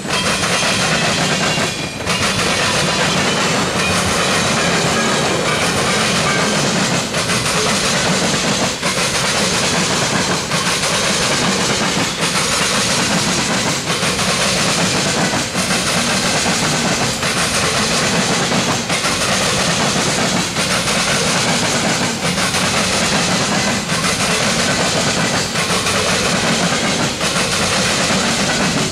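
Freight train's tank cars and boxcars rolling past on steel wheels: a steady, loud noise of wheels on rail, with a faint regular clack every couple of seconds as the trucks pass over the rail joints.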